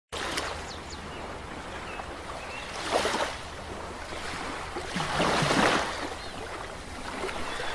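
Ocean waves surging on the shore: a steady wash with two louder swells, a short one about three seconds in and a longer one around five to six seconds.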